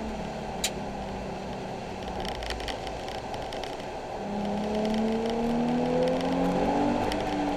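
Nissan 370Z's 3.7-litre V6 running on track, its note fairly steady at first, then rising in pitch as it accelerates from about four seconds in and dropping away near the end, over a steady hiss of wet road and tyre noise. A single sharp click about half a second in.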